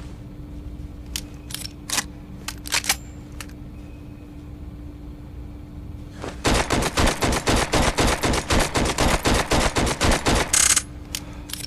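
Browning Hi-Power pistol gunfire sound effect: a few scattered sharp clicks, then a rapid run of shots about six a second for some four seconds, over a steady low hum.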